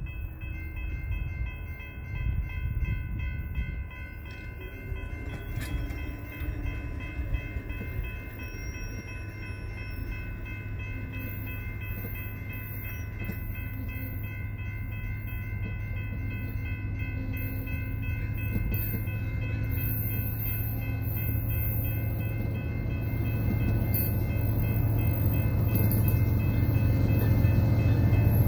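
Diesel locomotive hauling a CN coal train approaching, its low rumble growing steadily louder toward the end. Over it runs a steady high ringing of several tones that sets in at the start.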